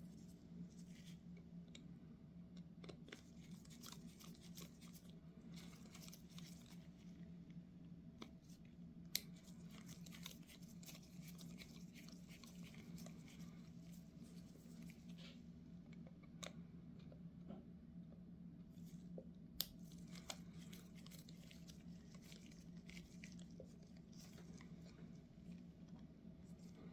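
Faint handling sounds of small carburetor parts and hand tools on a workbench: scattered light clicks and scrapes, with two sharper clicks about a third and two-thirds of the way through, over a steady low hum.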